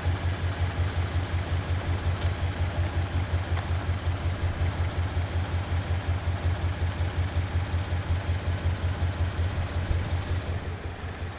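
Engine idling: a steady low pulsing drone with an even beat, easing off slightly near the end.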